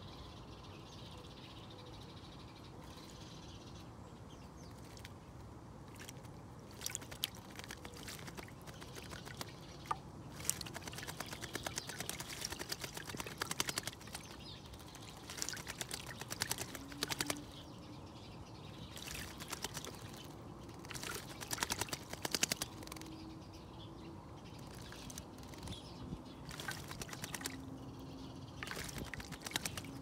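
Eurasian blackbird bathing in a shallow bird bath: bouts of splashing and wing-fluttering in the water, starting several seconds in and coming in bursts of one to a few seconds.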